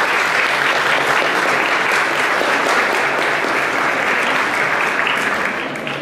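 Audience applauding, the clapping fading away near the end.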